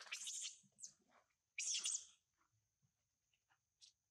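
Short high-pitched animal chirps and squeaks in a few bursts during the first two seconds, then only faint scattered ticks, over a faint steady high tone.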